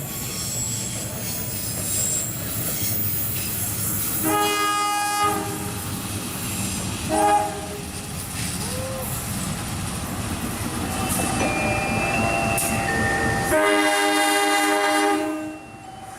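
Air horn of a CC 201 (GE U18C) diesel locomotive sounding Semboyan 35, the Indonesian railway horn warning, over the steady running noise of the train. It gives a blast of about a second, then a short toot a few seconds later, then a longer blast of nearly two seconds near the end.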